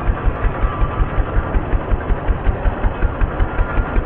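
Wisconsin engine of a National Mower Company tractor idling slowly and steadily, with even low exhaust pulses at about five a second.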